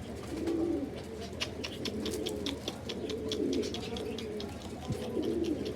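Domestic pigeons cooing: repeated low, rolling coos. Through the middle there is a run of quick, dry clicks.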